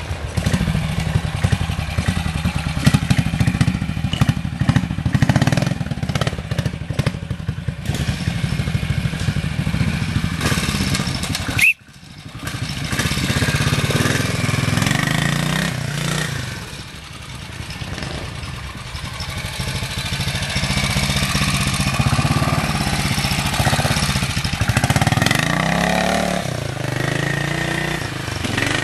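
Vintage trials motorcycle engines running at low revs while ridden through a section, the pitch rising and falling with the throttle. The sound breaks off for a moment about twelve seconds in.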